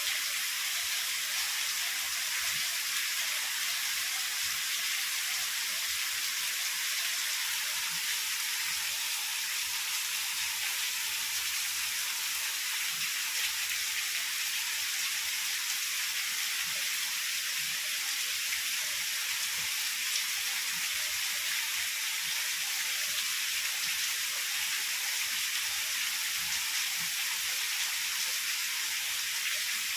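Heavy rain falling steadily: a dense, even hiss with no thunder.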